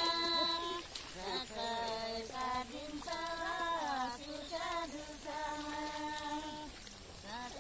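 A woman singing a slow folk melody, long held notes joined by sliding, wavering turns, in phrases with short breaths between them.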